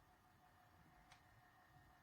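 Near silence: faint room tone with a faint steady tone and a single faint click about a second in.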